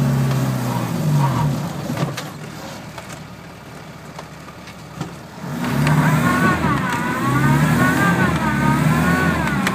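Land Rover Defender 90's diesel engine heard from inside the cab. It eases to a quieter run for a few seconds, then picks up again about six seconds in, joined by a whine that rises and falls in pitch.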